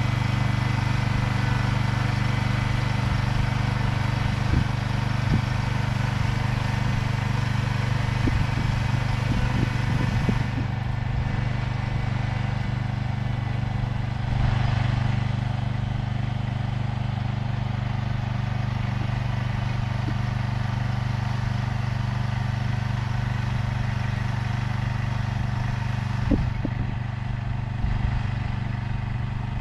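Engine of a mechanical vegetable transplanter running steadily while it plants corn seedlings, with a few short knocks along the way.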